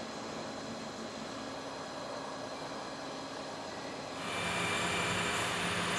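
Steady hiss of an OMAX waterjet cutting machine running in its water tank, with a fainter machine hum under it. About four seconds in the sound gets louder and brighter.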